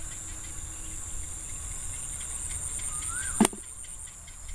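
Insects chirring steadily at a high pitch, one of the two tones pulsing rapidly. A single sharp click cuts across it about three and a half seconds in.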